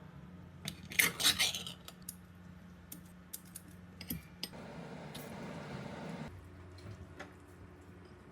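Metal kitchen utensils clinking against dishes and pans, loudest in a quick cluster about a second in. This is followed by a steady hiss for nearly two seconds that cuts off suddenly, over a low steady hum.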